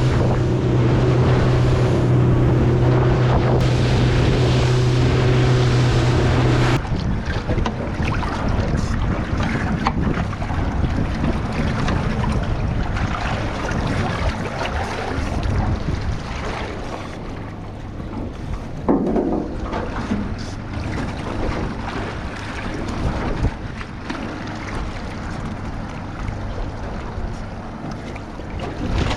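Boat motor running steadily at cruising speed with a strong drone. About seven seconds in the drone drops away abruptly, leaving a weaker engine hum under wind buffeting the microphone and water rushing past the hull.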